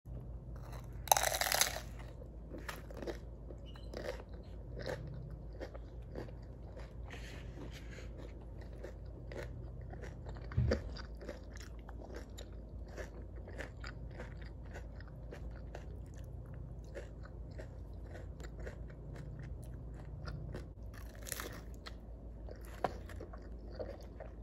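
Biting into a crunchy taco: a loud crunch about a second in, then chewing with many small crackles, and another crunching bite near the end, over a low steady hum.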